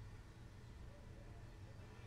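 A cello bowed very softly: a faint, sustained low tone, barely above near silence.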